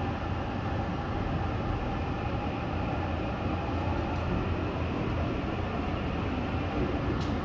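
Seoul subway Line 6 train heard from inside the car as it pulls out of the station: a steady running rumble. A brief click comes near the end.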